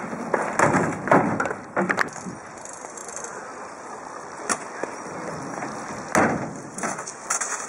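BMX bikes on a jump box ramp: several knocks of tyres and frames landing and hitting the ramp in the first two seconds, and a stronger knock about six seconds in. Between them a bicycle freewheel ticks as a bike coasts.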